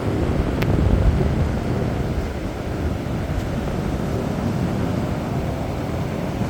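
Strong wind buffeting the microphone in low, gusting rumbles over a steady rush of sea surf.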